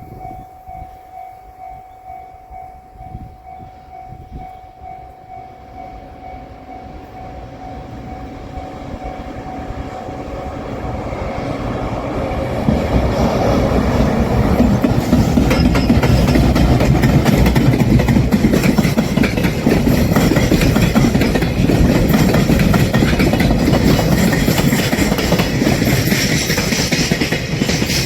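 A Japanese level-crossing bell rings over and over with a steady pitched clang, then a freight train hauled by an EF210 DC electric locomotive approaches, growing louder from about eight seconds in, and passes with a loud, steady rumble and wheels clattering over the rail joints that buries the bell.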